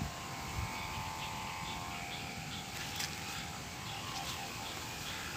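Open-air rural ambience: a steady faint hum and background noise, with a few short, faint animal chirps scattered through.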